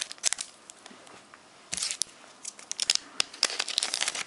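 Foil booster-pack wrapper crinkling and crackling in the hands as it is opened, in short bursts of sharp crackles, busiest in the second half.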